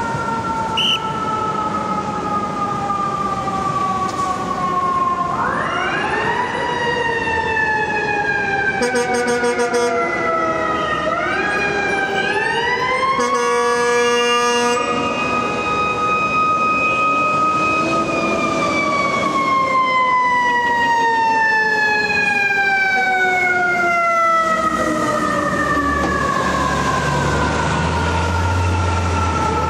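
Fire truck siren wailing, its pitch sliding slowly down, sweeping up again about six and twelve seconds in, holding level for a few seconds, then falling slowly through the second half. Two horn blasts cut in, a short one about nine seconds in and a longer one about thirteen seconds in.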